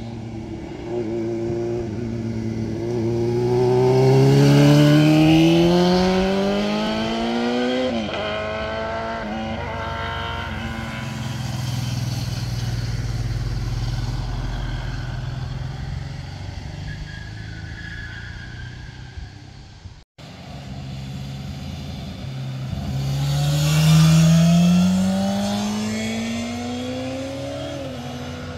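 Motorcycles accelerating out of a hairpin bend one after another, each engine note rising steadily in pitch and then dropping at an upshift. This happens twice. The sound cuts out for a moment about two-thirds of the way through.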